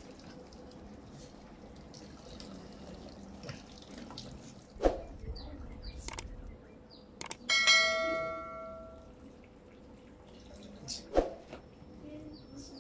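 Hands squeezing and kneading wet grated coconut mixed with coconut water in a basin to press out coconut milk: soft wet squishing and dripping. A little past halfway, something strikes metal with a ringing clang that fades over about a second and a half, and a dull thump comes both before and after it.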